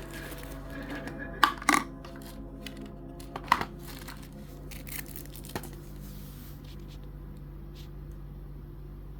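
A few sharp clicks and knocks of small hard objects being handled, over a steady low hum.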